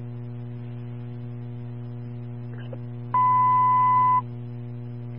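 A single steady beep of a dispatch radio alert tone, about a second long, about three seconds in, over a constant low hum on the radio channel. It comes just before the dispatcher transmits the 10-75 working-fire signal.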